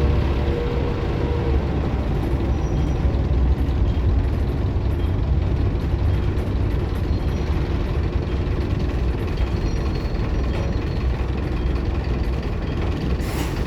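Optare Solo M950 bus running on the move, a steady low engine and road rumble heard on board. A short air hiss comes near the end.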